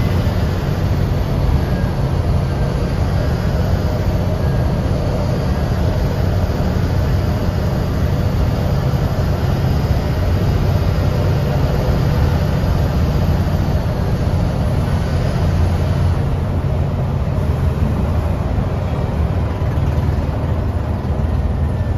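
Steady low drone of a coach bus's engine and road noise at cruising speed, heard inside the driver's cab.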